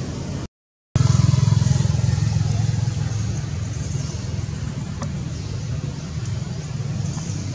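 Steady low rumble of a motor vehicle engine. It cuts out completely for about half a second near the start, comes back at its loudest, then eases slightly.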